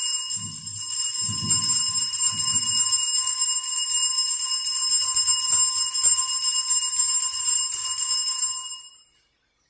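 Altar bells ringing steadily through the elevation of the chalice at the consecration, then stopping abruptly about nine seconds in.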